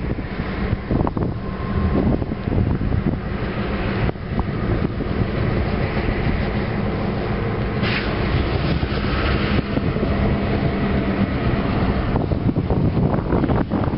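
Diesel-electric freight locomotive running as the train moves slowly, a steady low rumble with an engine hum, and a short hiss about eight seconds in.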